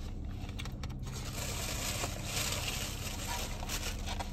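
Plastic garbage bag being handled, crinkling and rustling, over a low steady hum.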